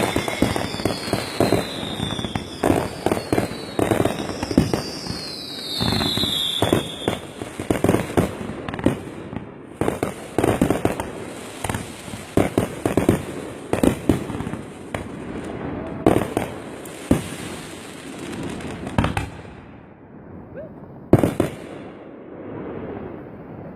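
Fireworks going off in a rapid barrage of bangs and crackles, with several falling whistles over the first seven seconds or so. The bangs thin out near the end, apart from one last loud bang.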